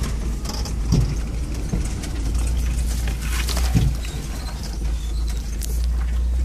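Off-road 4x4's engine running low and steady, heard from inside the cab as it crawls over a rutted dirt track. Body rattles and clicks throughout, with heavy thuds over bumps about one second and four seconds in, and brush scraping along the sides.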